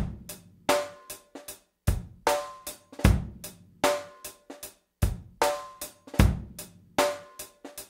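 Drum kit playing a short, punchy groove: deep kick-drum thumps roughly every second, with snare cracks and cymbal hits between them.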